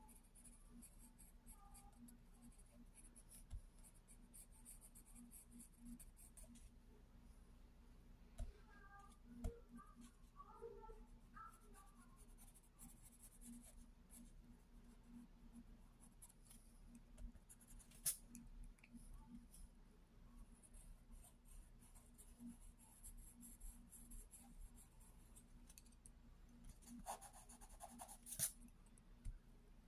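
Wooden graphite pencil scratching faintly over drawing paper in repeated sketching strokes, with a few sharper ticks and a louder scratchy stretch near the end.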